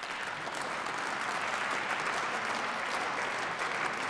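Applause from members of parliament in the chamber. It starts suddenly and holds steady.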